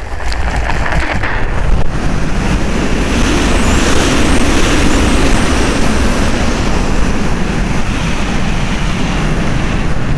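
Loud, steady rush of wind over the microphone of a camera mounted on a radio-controlled glider. It comes up suddenly as the tow plane pulls the glider off the grass and up into its climb on the tow line.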